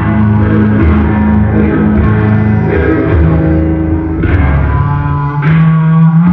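Loud rock music with guitar, playing continuously.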